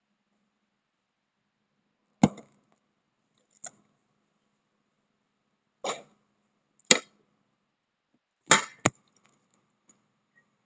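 About six sharp knocks and bumps at uneven intervals, with near silence between them: handling noise from a phone camera being moved and set in place on a surface.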